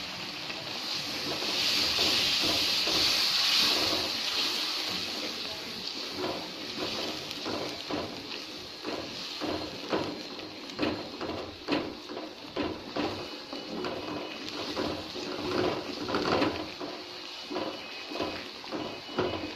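Spice paste (masala) in a metal karahi sizzling with a loud hiss for a few seconds as freshly added water hits the hot oil. It then bubbles and spatters while a wooden spatula stirs and scrapes through it, giving irregular pops and scraping knocks against the pan.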